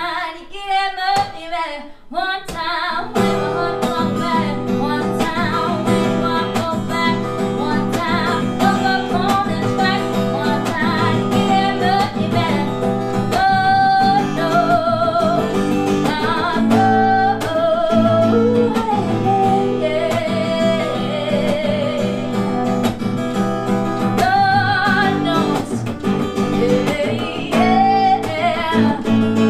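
Live acoustic guitar strummed steadily under a solo singing voice. The voice sings alone at first, and the guitar comes in about three seconds in.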